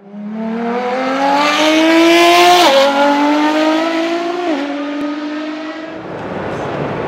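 Car engine accelerating hard, its pitch climbing steadily and dropping sharply at two upshifts, about two and a half and four and a half seconds in, before it fades away.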